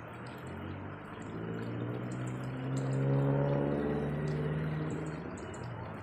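A steady rush of flowing water, with an engine's hum swelling in over it, loudest about three seconds in, then fading away.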